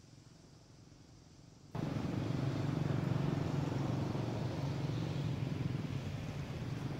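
A motor vehicle's steady low rumble with a hiss, cutting in abruptly about two seconds in.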